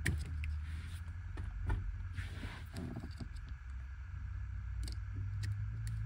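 Plastic wiring connector and wires of a VW T4 ignition switch being handled and unplugged: small scattered clicks and rustling, with a brief scrape about two seconds in, over a steady low hum.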